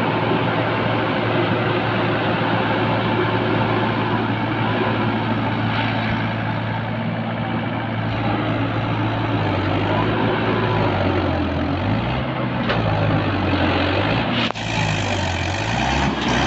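Diesel tractor engine running hard under heavy load, its note steady at first, then repeatedly rising and falling through the second half as the load and throttle change.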